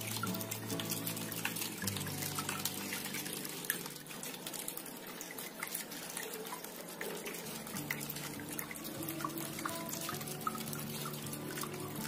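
Water trickling and dripping in many small splashes, over soft background music with sustained chords.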